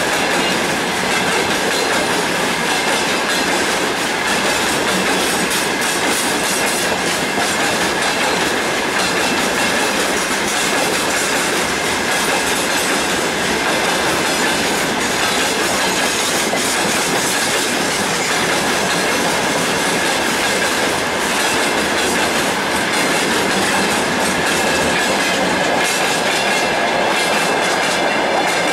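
A freight train of open-top gondola wagons rolling past, its wheels clattering over the rail joints, with a steady high-pitched squeal running through the rumble.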